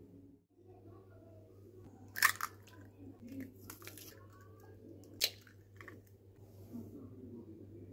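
Eggs being cracked into a porcelain bowl: two sharp cracks of eggshell about three seconds apart, with quieter crackling of the shells being pulled open. A low steady hum runs underneath.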